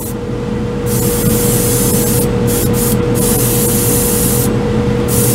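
Badger Patriot 105 airbrush spraying water: a hiss of air and mist that starts about a second in and comes in several bursts with short breaks, over a steady machine hum.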